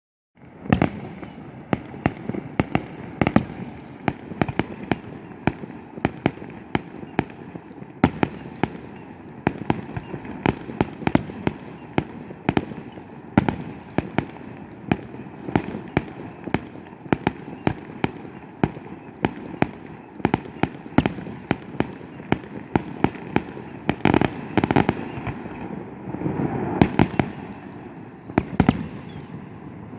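Fireworks display: a rapid, irregular barrage of sharp bangs, about two or three a second, over a continuous noisy background, starting abruptly just after the start.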